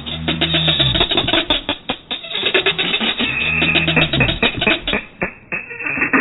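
Background music with a busy drum beat and a bass line that steps down in pitch.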